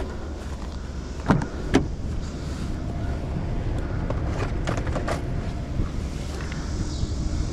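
Steady low rumble of wind on the microphone, with two sharp clicks just over a second in and a few fainter ones around the middle.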